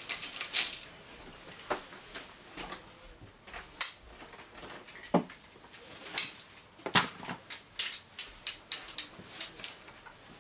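Metal climbing hardware, carabiners and cams, clinking and clicking as it is handled and sorted. There are scattered knocks at first, then a quick run of clicks in the last few seconds.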